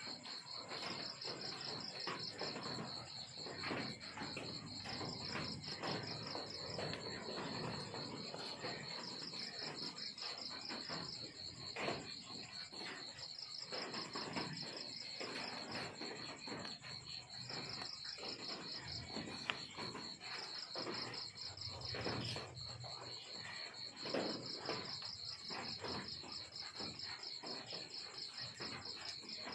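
Crickets chirping: a high, rapidly pulsed trill that comes in runs of a few seconds over a steady high tone, with scattered soft clicks and rustles underneath.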